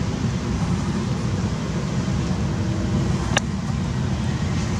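Steady low rumbling noise, with one sharp click about three and a half seconds in.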